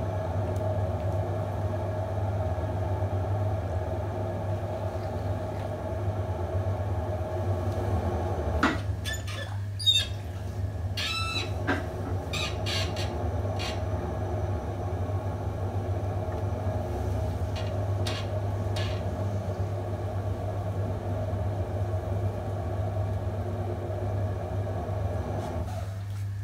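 Electric potter's wheel running with a steady hum while a lump of wet terracotta clay is pressed open on the spinning wheel head. A few short squeaks come about nine to twelve seconds in.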